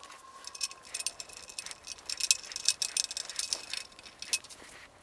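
Many quick, light metallic clicks and rattles from small hardware being handled and tightened as a torque arm and its hose clamps are fitted against the bicycle fork at the hub motor's axle, played fast-forward.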